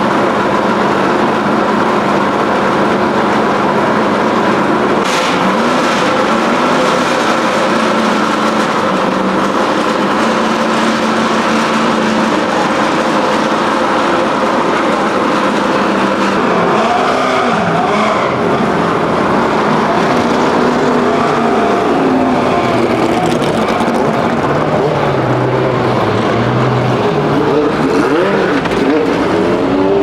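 McLaren M8E Can-Am car's 7.2-litre V8 idling steadily, blipped a few times so the revs briefly rise and fall. Near the end an engine note rises in pitch.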